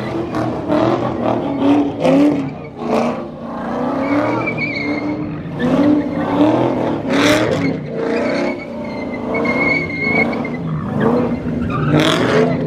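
A car doing donuts: its engine revs up and down again and again while its tires screech on the pavement, with a high squeal held for about a second at a time twice.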